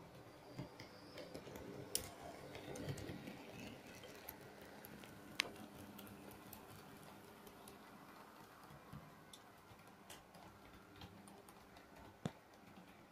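Model railway trains running on sectional track: irregular clicking of the wheels over the rail joints over a faint steady hum, with a few sharper clicks.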